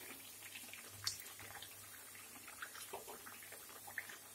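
Mathri deep-frying in oil in a kadhai over a low flame: a faint steady sizzle with scattered small pops and ticks, while a slotted spoon turns them over in the oil.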